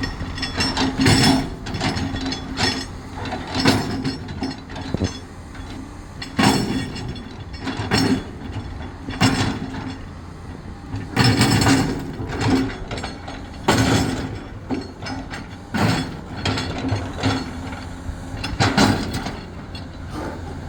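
Caterpillar heavy machine at work with rocks: a steady engine tone under irregular loud clanks and clattering, one every second or two.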